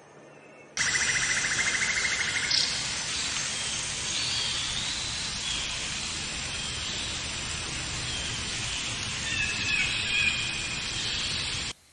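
Outdoor nature ambience: a steady hiss with birds calling over it and a fast trill near the start. It starts abruptly about a second in and cuts off just before the end.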